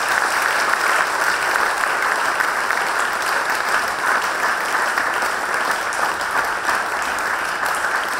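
A large audience applauding steadily, a dense clatter of many hands clapping.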